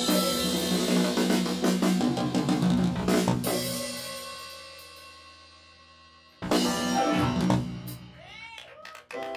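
Live band of electric guitar, keyboards, bass, drums and percussion playing an instrumental tune. A busy groove with drum hits stops about three and a half seconds in, and its last chord rings and fades. A sudden loud band hit with cymbals comes about six and a half seconds in, followed by a few sliding notes.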